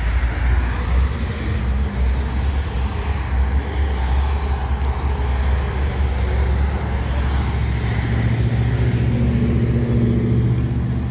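A car engine running steadily with a low drone. A second, slightly higher steady drone comes in about eight seconds in.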